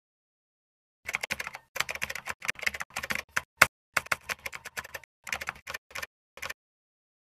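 Computer keyboard typing: a run of quick, irregular key clicks that starts about a second in and stops shortly before the end.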